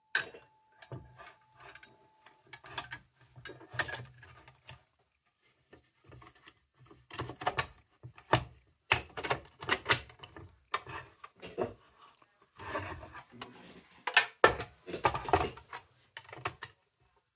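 Irregular sharp clicks and light metallic clatter from the parts of an old Rayo kerosene lantern being handled, sparse at first, then busier and louder after a short pause, with a few hard knocks.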